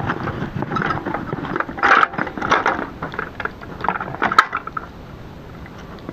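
Metal water can clinking and rattling on a two-wheeled hand cart as it is wheeled over snowy boards, with a sharp clank about four seconds in as the cart is tipped and the can set down; quieter after that.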